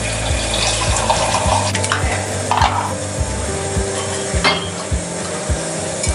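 Steel ladle knocking and scraping against a stainless-steel kadhai of thin sauce, a few sharp clinks over a steady background hiss.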